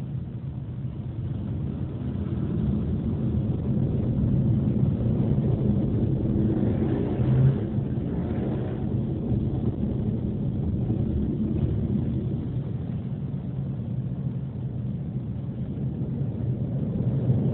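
Automatic car wash running: a steady low rumble that builds over the first few seconds and swells briefly about halfway through.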